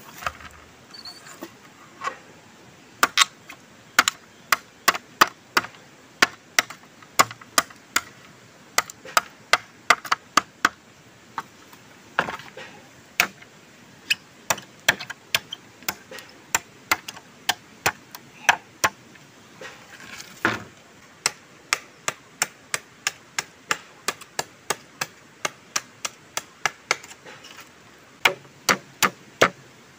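Machete blade chopping split bamboo: a long series of sharp, separate chops, about two a second, sparse for the first few seconds.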